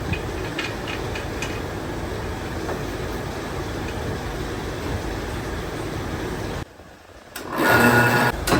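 Steady running noise of factory machinery with faint ticking. It cuts off abruptly about two-thirds of the way through, and after a second's lull a louder machine sound with a steady hum starts.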